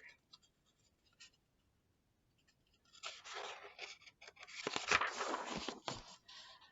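Paper rustling and sliding from a picture book's page being turned, with a few sharp clicks, starting about three seconds in after a quiet stretch.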